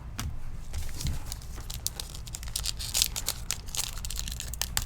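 Baseball trading cards being handled: a run of quick card flicks and rustling with paper and foil crinkling, busiest in the second half.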